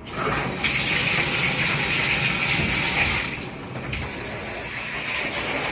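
Shower head spraying water, a steady hiss of spray that starts suddenly as the water comes on. It dips briefly about three and a half seconds in, then carries on.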